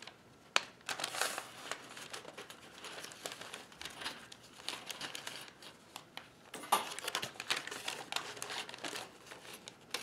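Paper and cardboard crinkling and rustling as a box of Flexco metal belt lacing is opened and a strip of lacing is drawn out of its paper wrapping, with scattered sharp clicks.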